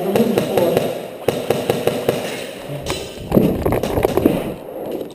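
Irregular sharp cracks, clicks and thumps of an indoor airsoft firefight: airsoft guns firing and BBs striking, mixed with a player running with his gear, and a thicker cluster of knocks about three seconds in.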